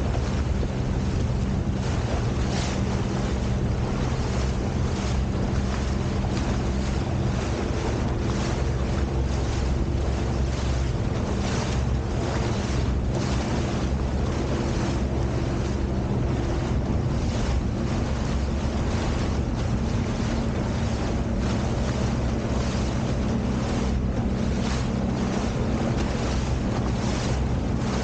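Sea-Doo Fish Pro jet ski engine running steadily at trolling speed, with water splashing off the hull and wind buffeting the microphone.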